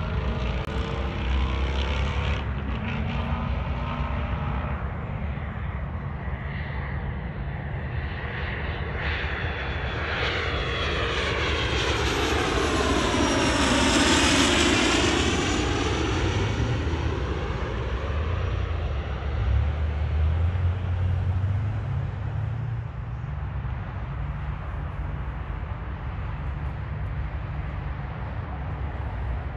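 Business jet on approach to land passing low overhead, its turbofan engines' noise swelling to a peak about halfway through with a swirling, phasing sweep as it goes over, then fading to a low rumble.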